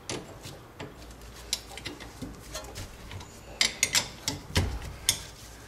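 Scattered metallic clicks and clinks of a wrench working the bolts on a rear disc brake caliper, coming more densely in the second half.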